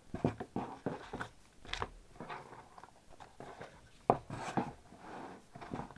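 Hands handling and setting down trading-card packs and card boxes on a playmat: scattered knocks and rustling, with the sharpest knock about four seconds in.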